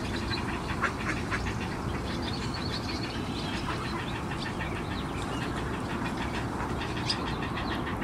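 Steady low background rumble with scattered short bird calls over it, and one brief sharper sound about a second in.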